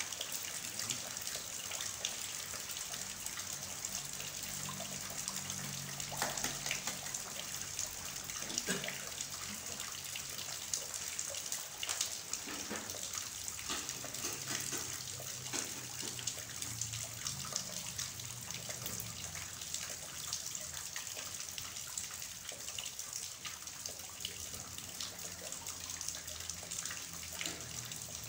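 Heavy rain falling steadily on a waterlogged yard, a dense even hiss with scattered sharper drop hits.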